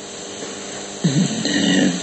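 A man's voice: a short pause with steady background hiss, then about halfway through a low, drawn-out voiced sound between his spoken phrases.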